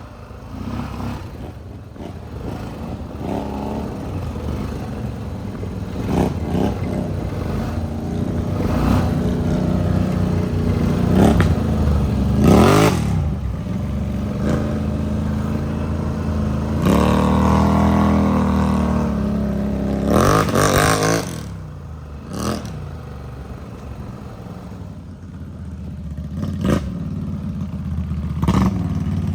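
ATV engine being ridden, revving up and easing off again and again, with a long rise in revs about halfway through. Scattered clatters and knocks sound over the engine.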